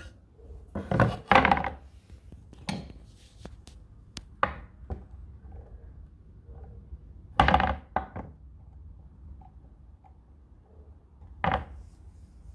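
Handling knocks from an old wooden toolbox board and a steel square being moved about and set down on a workbench: a few separate thunks, the loudest about a second in and again about halfway through.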